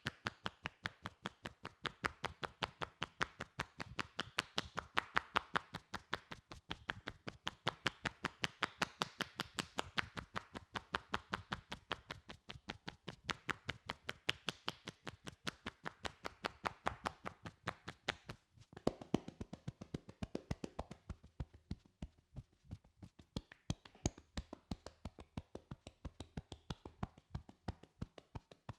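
Hands striking a person's back in quick, rhythmic percussive massage strokes (tapotement), several a second, with a short break about two-thirds of the way through.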